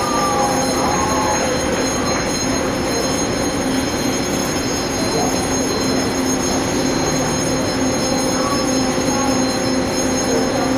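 Steady running noise of a train, with a few faint brief squeals near the start and again near the end.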